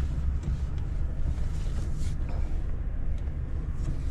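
Low, steady rumble inside a Chevrolet pickup's cab as it is driven slowly: engine and road noise.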